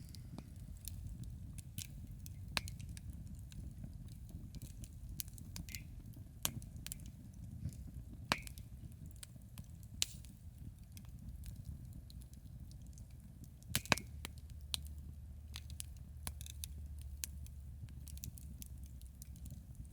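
Wood campfire crackling, with irregular snaps and several sharper pops over a steady low rumble.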